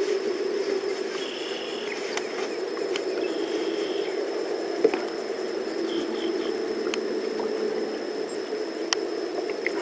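Steady outdoor ambience on a small boat on a river: a constant low rush of water and air, scattered light ticks, and three short high-pitched chirps.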